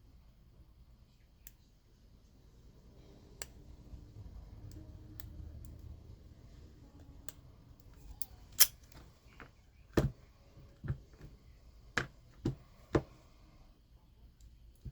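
A Master Lock padlock being picked: faint rubbing of the tools in the lock, then a series of sharp metallic clicks, the loudest about eight and a half seconds in, with several more following over the next few seconds.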